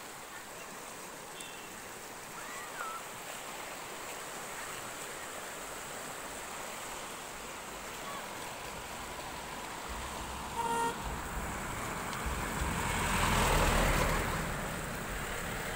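Steady rush of river water flowing under a bridge. About two-thirds of the way through comes a short vehicle horn toot, followed by a vehicle passing, its noise swelling and then fading.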